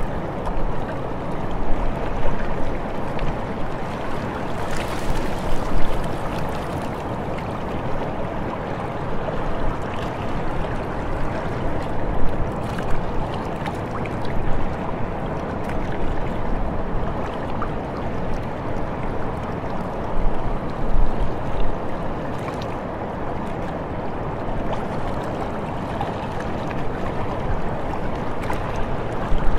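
Steady rush of a river current and surf, with wind gusting against the microphone.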